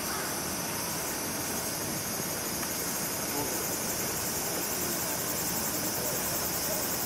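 Steady hiss of heavy rain falling.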